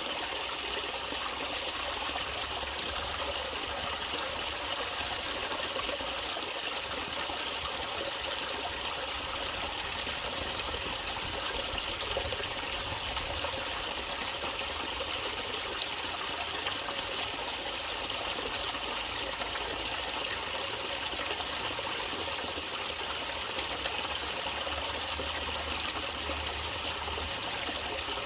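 Natural running water trickling and flowing steadily, an even unbroken rush.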